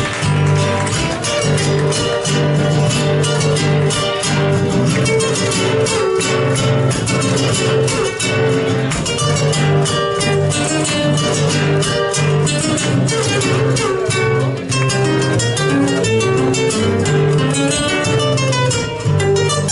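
Instrumental passage of a chacarera played on strummed acoustic guitars, with quick, even strums over steady bass notes and no singing.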